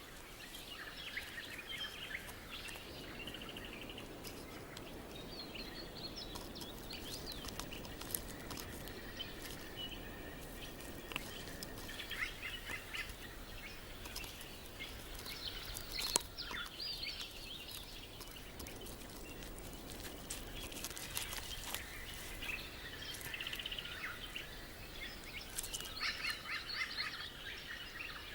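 Birds chirping and calling over a steady outdoor hiss, in several bouts, with scattered sharp clicks and scratches, the loudest about 8 and 16 seconds in.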